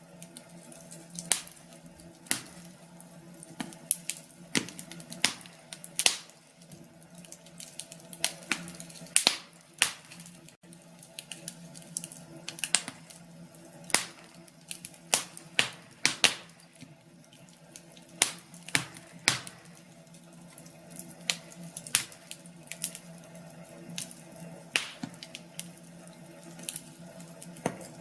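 Wood fire crackling in a fireplace: irregular sharp pops and snaps, several a second, over a faint steady low hum.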